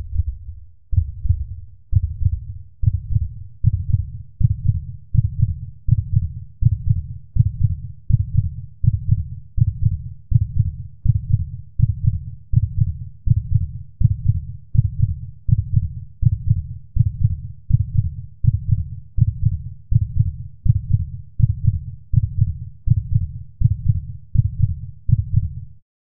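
Heartbeat sound effect: a steady run of low, dull thumps that quicken over the first few seconds, then hold a fast, even pace of about one and a half beats a second.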